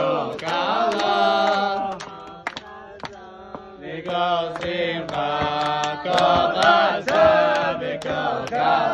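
A group of men singing a tune together, chant-like, with sharp hand beats in time. The singing drops away for about two seconds in the middle, then comes back.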